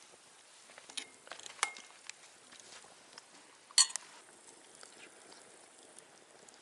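A few light clicks and clinks of small hard objects, one with a brief ring about one and a half seconds in, and a sharper click near the middle, over a quiet background.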